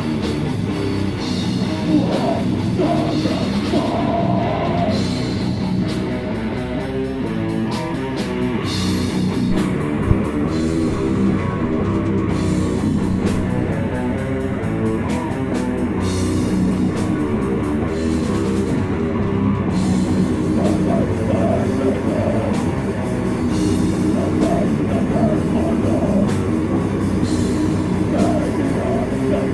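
Death metal band playing live: distorted guitars over a drum kit, loud and continuous.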